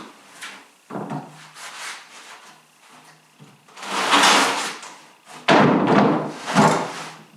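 Large sheets of plywood being shifted and set down by hand: a sharp knock about a second in, then two longer, louder clattering bumps about four and five and a half seconds in.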